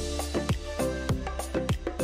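Background music with a steady beat: deep drum hits that drop in pitch, about two a second, over a held bass note and lighter percussion.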